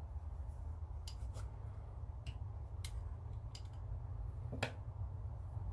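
Light metallic clicks and taps of a Marlin 795 .22 rifle's parts being handled as the action is lifted out of its stock and set on a rubber bench mat: about six sharp clicks, the loudest a little past the middle, over a steady low hum.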